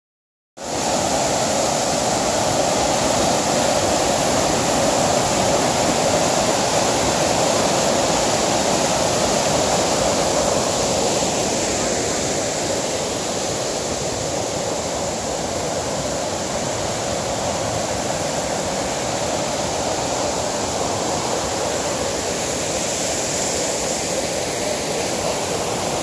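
White water of a mountain stream rushing down a rocky waterfall: a loud, steady rush of falling water, easing slightly about halfway through.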